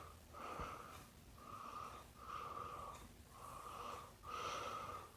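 A man breathing audibly in and out through his nose, faint and wheezy, about six breaths in a steady rhythm.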